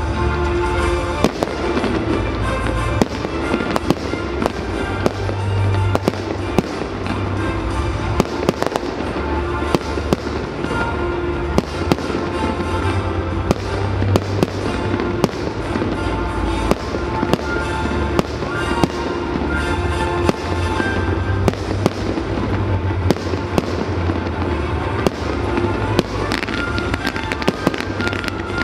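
Fireworks display, with frequent sharp bangs, pops and crackles of launching and bursting fireworks. Music with a steady bass line plays loudly underneath throughout.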